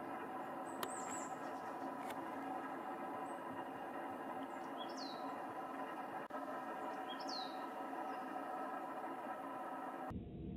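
Two short, high bird calls falling in pitch, about two seconds apart, over a steady background hum.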